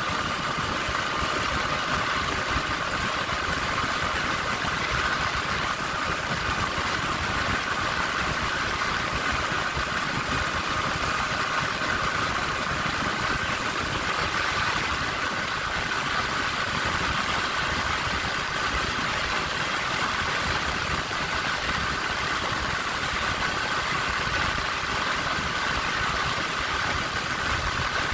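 Motorcycle engine running steadily at high revs in fourth gear at about 125–130 km/h, with wind rushing past; the speed stops climbing near 130 km/h, topping out in that gear.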